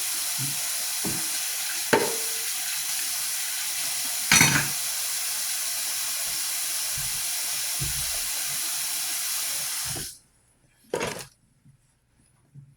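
Kitchen tap running into the sink with a steady hiss while dishes clink now and then; the water is shut off about ten seconds in, and one more clink follows.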